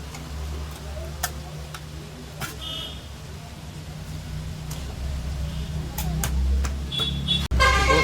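A steady low hum with scattered sharp clicks and two brief high horn-like toots. After a sudden break near the end, a loud pitched horn-like tone sets in.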